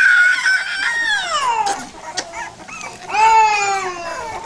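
Pit bull puppy whining in two long, high-pitched cries. The first holds its pitch, then slides down; the second starts about three seconds in and falls slowly in pitch.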